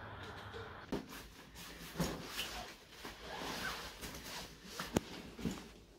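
Rustling of a backpack and clothing as it is slung onto the shoulders, broken by a few sharp clicks about 1, 2 and 5 seconds in.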